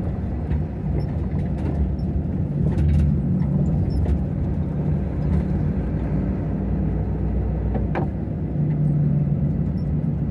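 Semi-trailer truck's diesel engine running steadily, heard from inside the cab over road noise while driving, with a sharp click about eight seconds in.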